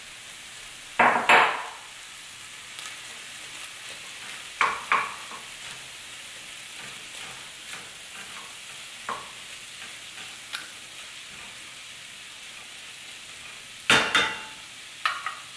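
Wooden spatula stirring pinto beans and jackfruit in a sizzling skillet: a steady low sizzle with a few short scraping strokes against the pan, about a second in, around five seconds, and in a cluster near the end.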